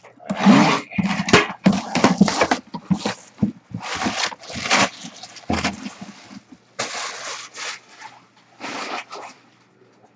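Plastic shrink wrap being torn and peeled off a cardboard box, in a series of irregular crinkling, rustling bursts with short pauses between them.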